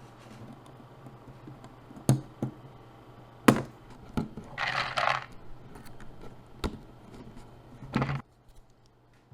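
Hard keyboard parts being handled and set down during assembly: a few sharp clicks and knocks, with a brief rattle about halfway through. A low steady hum sounds under them and stops near the end.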